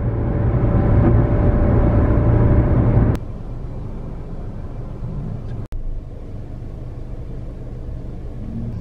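Road and engine noise inside a car cabin at highway speed: a steady low rumble with a faint steady drone. About three seconds in it cuts abruptly to a quieter rumble, with another sudden break a little past halfway.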